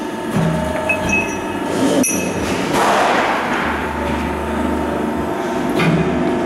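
Hydraulic CNC press brake (Mantech W67K-80/2500) running through a bend cycle, its upper beam coming down onto a steel bracket held in the die. There is a sharp click about two seconds in and a low hum from about four seconds in.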